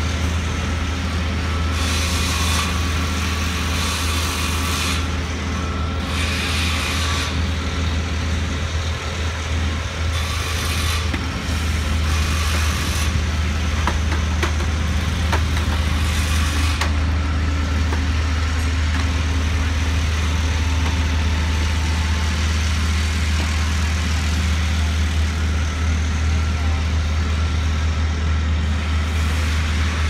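Heavy diesel engine of a crawler crane running steadily with a deep drone as it hoists a tall steel rack frame upright. Several short hisses come in the first half.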